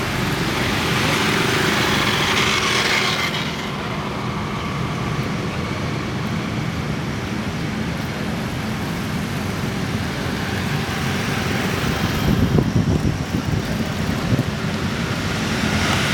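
Steady city road traffic with engines running. Vehicles swell past during the first few seconds and again in the last few seconds, with a rougher, louder stretch of engine noise about twelve seconds in.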